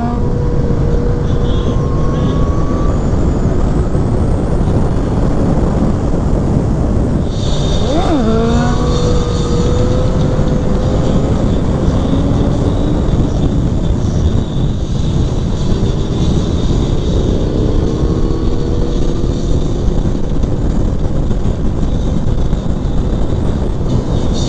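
Sportbike on the move, with heavy wind rush over the microphone and the engine note gliding up and down beneath it through the gears. There is a quick sharp rise and fall in engine pitch about eight seconds in.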